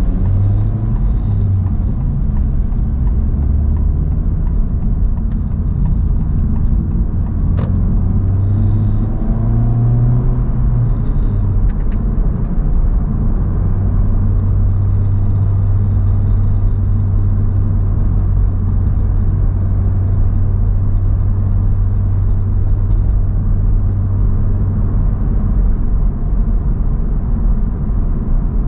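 Honda Civic Type R (FL5) being driven: a steady low engine drone over road rumble. The engine note wavers in the first half and holds level from about halfway on.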